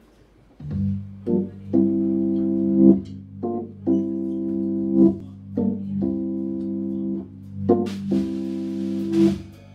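Hammond organ playing a jazz intro: short phrases of held chords over a sustained bass line, each phrase led in by a quick pickup. A cymbal wash joins near the end.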